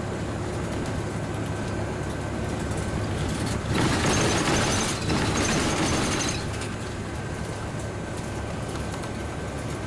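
Steady road and tyre noise heard from inside a vehicle moving along a highway. About three and a half seconds in, it swells into a louder rush of passing traffic for about three seconds, then settles back.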